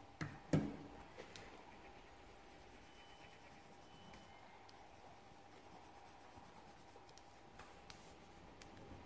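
Hands handling a sheet of paper on a tabletop: two light knocks in the first second, then faint rubbing and a few small clicks over a faint steady hum.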